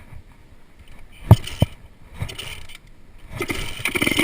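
Two sharp clunks, then the single-cylinder four-stroke engine of a 110cc Stomp pit bike starts up about three seconds in and runs with a rapid, even beat.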